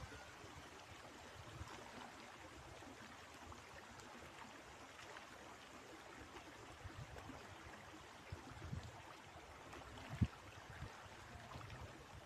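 River water flowing steadily, with wind buffeting the microphone in low, uneven gusts and one sharp thump near the end.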